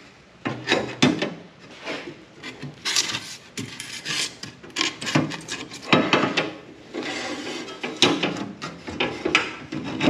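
An aluminium strip and a hatch lid scraping and knocking against the aluminium deck frame as they are worked into place by hand. The sound is a string of irregular rubs and clunks.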